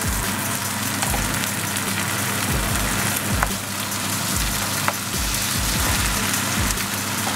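Onions and chopped tomatoes sizzling in a frying pan while a wooden spoon stirs them, with a few light clicks of the spoon against the pan. A steady low hum runs underneath.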